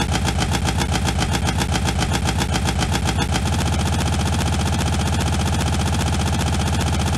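Engine idling with a rapid, even pulse. About three and a half seconds in, the pulse quickens and smooths out.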